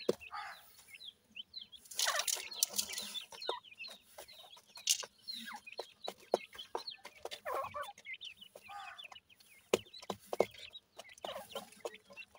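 Grey francolin chicks giving many short, soft cheeping calls in quick succession, with scattered sharp clicks and a brief rustle about two seconds in.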